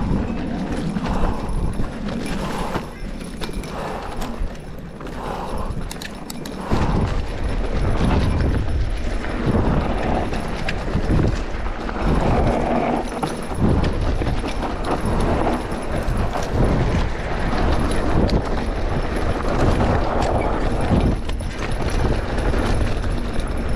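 Mountain bike riding down a dry, loose dirt singletrack: tyres crunching over dirt and rocks, with irregular knocks and rattles from the bike. It is quieter for the first six or seven seconds, then a heavy wind rumble on the microphone comes in as the bike picks up speed.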